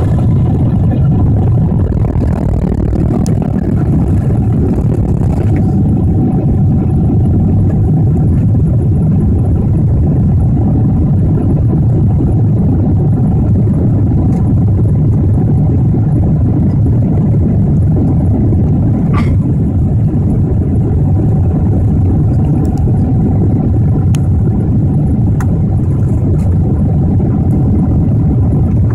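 Steady low roar of a four-engined Boeing 747 in flight, heard inside the passenger cabin: engine and airflow noise with a faint steady tone and a few brief clicks.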